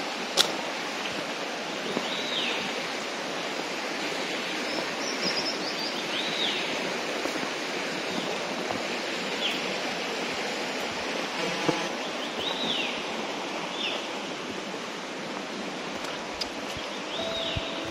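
Steady rushing of a mountain stream. A bird repeats a short high call about every four seconds over it.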